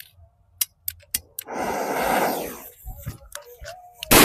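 A few light clicks and about a second of hissing as the fuse burns, then near the end one very loud, heavy bang from a King Bomb sutli (twine-wrapped) firecracker exploding, with an echoing tail.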